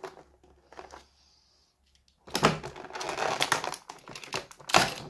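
Stiff clear plastic packaging crackling and crinkling as the box is worked open, with a few faint clicks at first, a longer crackling spell past the halfway point and one sharp snap near the end.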